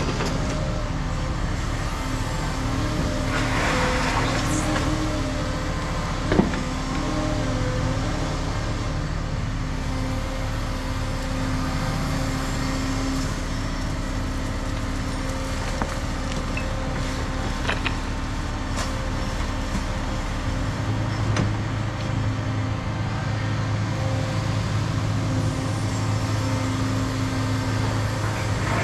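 Caterpillar 335 next-gen excavator's diesel engine running steadily while it works, with a single sharp knock about six seconds in. The engine note changes about two-thirds of the way through.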